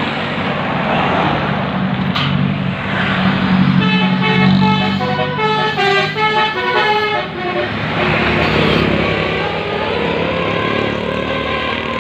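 Bus 'telolet' musical air horn playing a quick tune of short stepped notes for about three seconds, over the steady sound of the bus's engine running.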